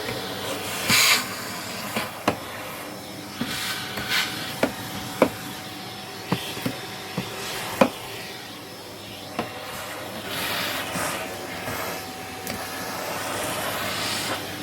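Vacuum cleaner running steadily with a thin whine. Sharp clicks and knocks come every second or so, and the airflow swells into a louder rush about a second in, around four seconds, at ten to eleven seconds, and near the end.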